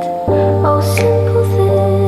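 Background music: soft, slow music with held notes and a steady bass, the bass shifting about a quarter second in, with light ticks now and then.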